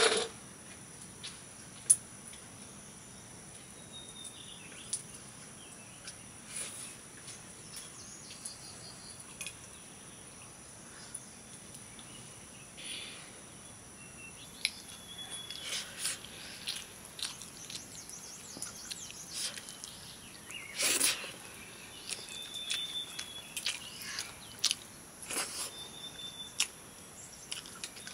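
Insects trilling steadily at a high pitch, with scattered small clicks and a few short bird chirps; one louder brief sound about three quarters of the way through.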